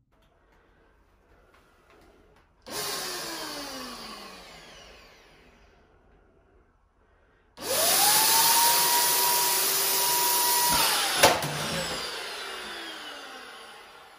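Wagner W 590 FLEXiO handheld paint sprayer's turbine blower. It runs briefly about three seconds in and winds down with a falling whine. It then starts again, rising to a steady whine for about three seconds while spraying paint. A click follows, and it winds down.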